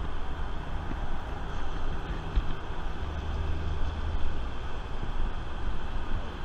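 Steady rumble of city freeway traffic below, with no single vehicle standing out.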